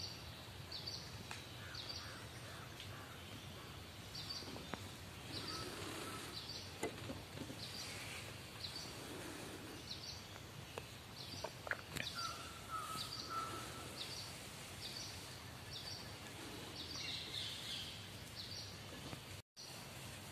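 A bird repeating a short, high chirp about once a second over faint outdoor background noise, with another brief, lower call a little past the middle.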